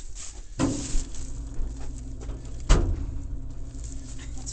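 Two heavy metal clunks about two seconds apart, the second the louder, as a door on an E-Classic outdoor wood boiler is worked, over a steady low hum.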